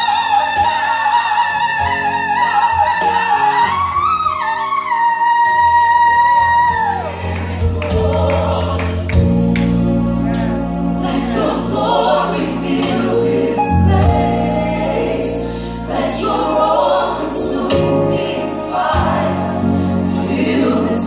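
Gospel worship song: a lead voice holds one long high note that rises partway through and falls away, then the choir and band come in with a steady bass.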